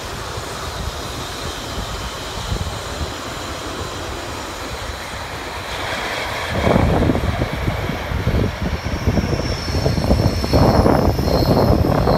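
Electric passenger train running past on the Gotthard line, a low rumble that grows louder about halfway through, with gusty wind buffeting the microphone. High thin squealing tones, typical of wheels in a curve, join in over the last few seconds.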